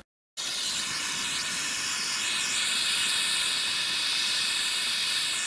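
Small handheld gas torch burning with a steady hiss, its blue flame heating a brass letter to tin it with solder. The hiss cuts in abruptly a fraction of a second in.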